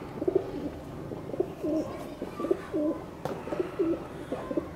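Domestic pigeon cooing: a run of short, low coos, about two a second.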